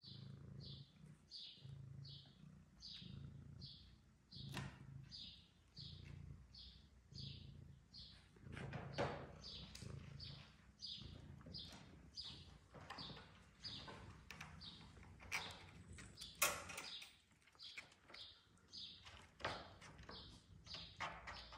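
A faint, evenly repeating high chirp, nearly two a second, alternating with a low pulse, with scattered clicks and knocks in the middle.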